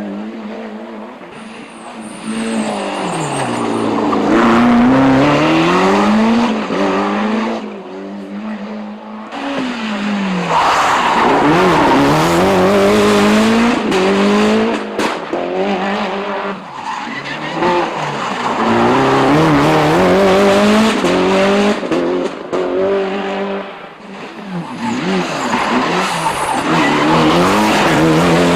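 Rally car engines revving hard at racing speed. The engine note climbs and drops again and again through gear changes and lifts, with loudness dips between passes.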